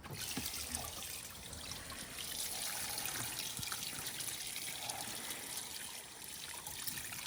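Running water splashing steadily as a watermelon is washed under it; the flow starts at the very beginning.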